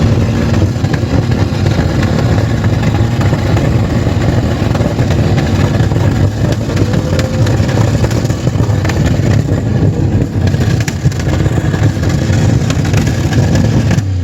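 Engines of three scrap cars, a 3.8 and a 5.4 and a Mitsubishi, running together flat out at high revs in a loud, steady drone, being run to the point of failure.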